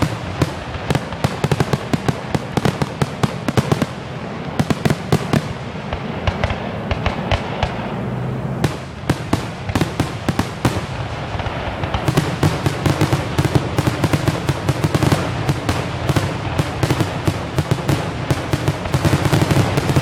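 Aerial fireworks going off in a dense barrage: rapid overlapping pops and bangs, many per second, over a continuous low rumble of booms.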